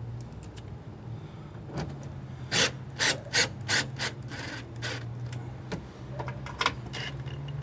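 Cordless drill/driver driving a screw through a plastic hose-carrier bracket into a steel trailer frame, run in a string of short trigger bursts, most of them packed together in the middle. A steady low hum sits underneath.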